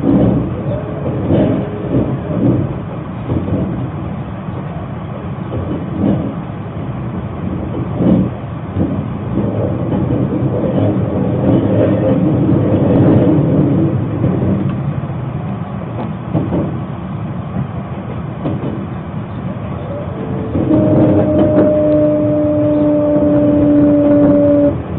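Passenger train running, heard from inside the car: a steady rumble of wheels on rail with occasional clacks. Near the end a steady two-pitched tone sounds for about four seconds, then stops.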